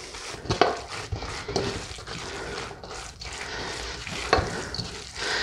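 Cornbread stuffing, moistened with broth and melted butter, being tossed and stirred in a mixing bowl: a rustling, scraping texture with a few light knocks against the bowl.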